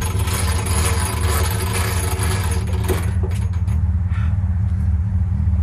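Hand winch being cranked, its ratchet and cable clicking and rattling as it pulls a car onto a trailer, busiest in the first half. Under it a vehicle engine idles with a steady low drone.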